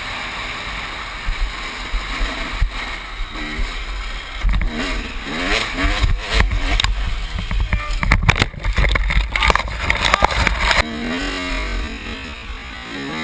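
KTM motocross bike's engine revving up and down as it is ridden over a rough dirt track, with a burst of knocks and rattles over the bumps in the middle and a steady rumble of wind on the helmet microphone.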